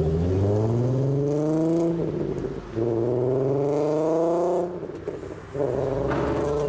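A car's engine revving up as it accelerates away, breaking off briefly for a gear change about halfway through and then climbing again. Near the end a second car's engine runs steadily, close by.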